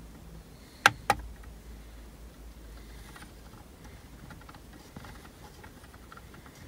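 Two sharp clicks about a second in, followed by a run of faint, light clicks as the buttons of an electronic boost controller are pressed to step up its duty cycle setting.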